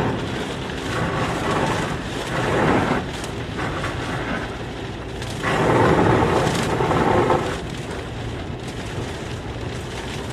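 Rain falling as a steady rushing noise, with two louder swells that rise and fade, the first about two and a half seconds in and the second, longer one about halfway through.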